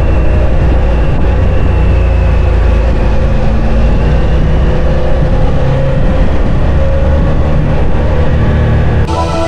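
Motorcycle engine running at road speed with wind rushing over the bike-mounted camera's microphone, its note wavering slightly. Music comes in near the end.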